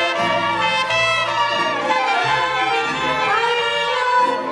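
Mariachi band playing an instrumental passage between sung lines: violins carry the melody with trumpet over a moving bass line.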